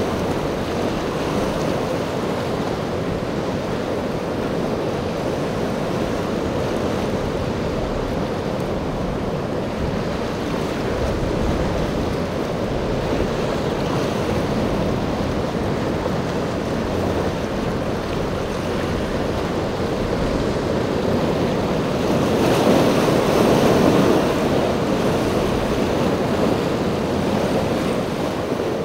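Rough surf and choppy sea washing steadily, with wind buffeting the microphone. The surf swells louder a little over three quarters of the way through.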